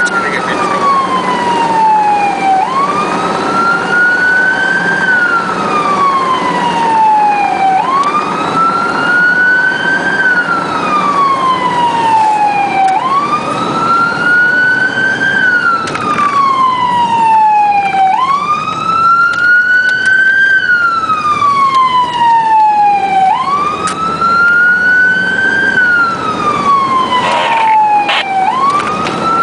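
Siren on a firefighter's own vehicle sounding a steady wail, its pitch climbing quickly and then sliding slowly down, over and over about every five seconds, above the hum of the vehicle driving. A short sharp sound cuts in near the end.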